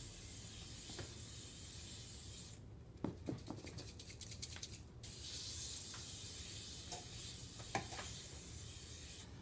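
Aerosol cooking spray hissing into a metal cake pan to grease it, in two long bursts. The spray stops for about two seconds in the middle, with a few light knocks in the pause.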